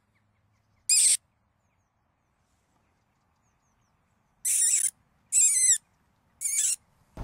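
Four short, high-pitched squeaks made with the mouth to call rabbits out of their warren: one about a second in, then three in quick succession past the middle.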